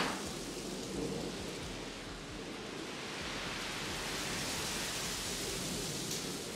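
Steady, even hiss of background noise with no distinct events, opened by a single short click.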